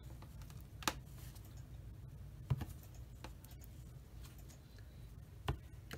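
Sharp little plastic clicks and taps from a primer bottle's cap being worked open and the bottle handled: three louder clicks spread through, with fainter ticks between.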